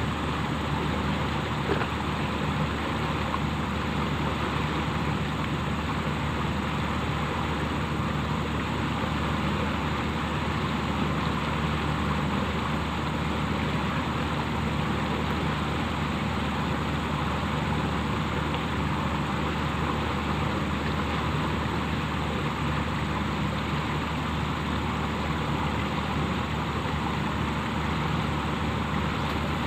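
A steady engine drone running at constant speed without change, a low hum under a continuous hiss.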